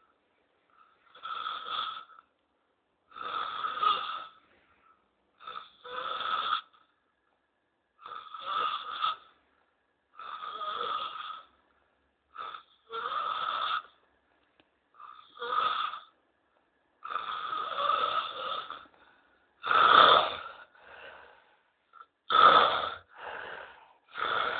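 A person snoring loudly in sleep, a snore every second or two with silent gaps between, the loudest snores coming near the end.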